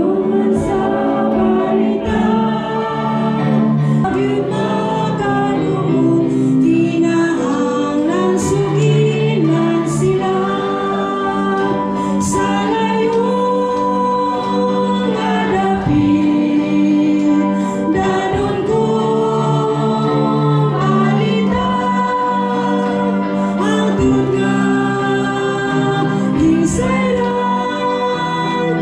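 Church congregation singing a worship song together, over steady sustained instrumental accompaniment.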